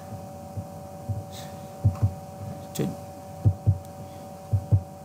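Computer mouse clicking: several short dull clicks, mostly in quick double-click pairs, over a steady faint hum.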